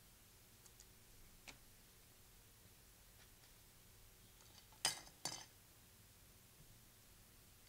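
Near silence, with a faint click and then two sharp clicks about half a second apart from trading cards being handled.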